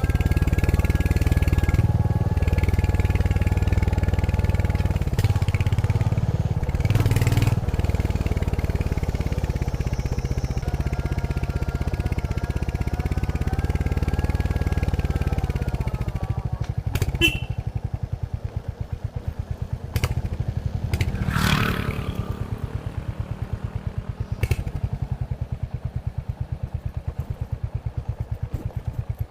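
Royal Enfield Hunter 350's single-cylinder engine through its stock exhaust, running as the bike rides along. About halfway through it settles into a slower beat of separate, evenly spaced thumps, with a few sharp knocks from the bike.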